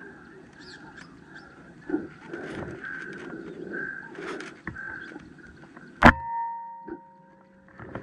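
A single sharp crack of a PCP air rifle firing about six seconds in, the loudest sound, over a steady outdoor background with a high pulsing chirp. After the shot the background drops away and a few steady tones hang on briefly.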